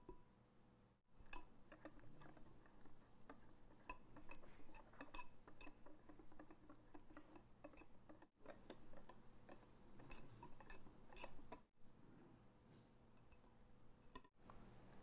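Wire whisk mixing batter in a glass bowl, faint, with frequent light clicks and taps of the wires against the glass, broken off briefly a few times.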